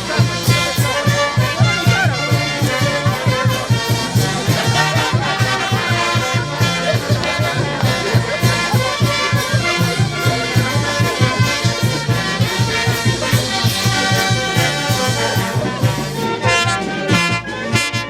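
Live Andean brass band playing festive music, with trumpets and trombones carrying the tune over a steady, even beat.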